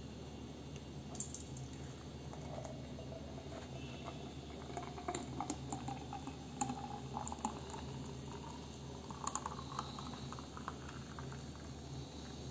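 Strawberry milkshake being poured into a tall glass: faint liquid splashing and gurgling with small pops and clicks, the pitch of the filling sound climbing a little as the glass fills, over a low steady hum.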